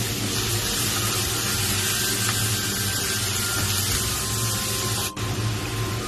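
Steady kitchen noise: an even hiss over a low hum, broken off sharply about five seconds in and then carrying on.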